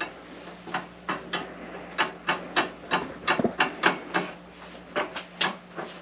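Light, irregular metal clicks and taps, a couple of dozen over a few seconds, from the balance beam and sliding weight of an antique platform scale, from around 1900, being adjusted. A faint steady hum runs underneath.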